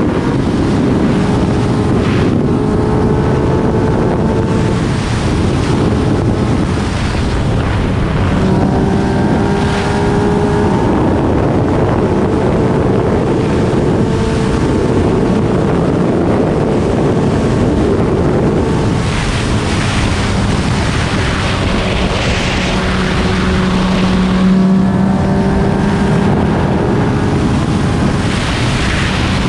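Yamaha MT-09 three-cylinder engine pulling steadily at high speed, around 200 km/h, under a heavy rush of wind on the microphone. The engine note holds nearly level, rising and falling slightly in pitch as the speed changes.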